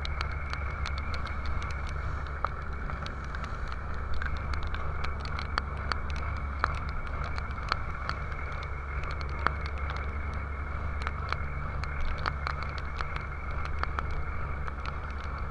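A boat's engine runs with a steady low hum under the rush of wind and rough sea, with many small scattered clicks and pattering of spray hitting the camera.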